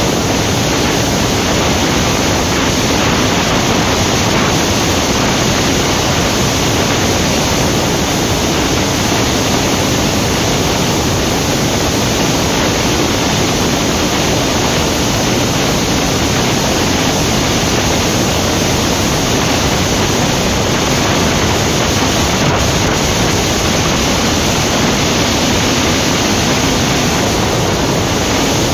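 Steady rush of wind noise over the microphone on a Yamaha R15 V3 sport bike cruising at about 100 km/h in sixth gear.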